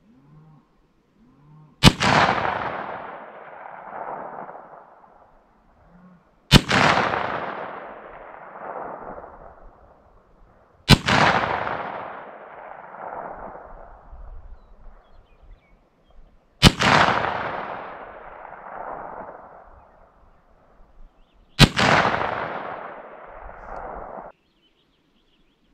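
Five slow, aimed .357 Magnum shots from a Smith & Wesson Model 686 revolver firing 125-grain loads, about five seconds apart. Each sharp report is followed by a long echo that dies away over two to three seconds.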